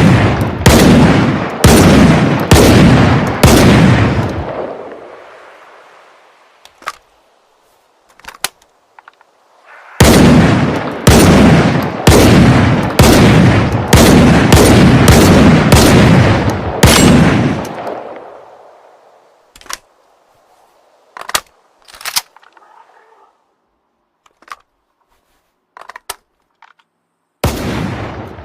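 Saiga-12K semi-automatic 12-gauge shotgun firing in rapid strings of shots, about two a second: about five shots, then a longer string of about ten, each string dying away in a long echo. Between the strings there are a few short, sharp clicks, and a new string starts near the end.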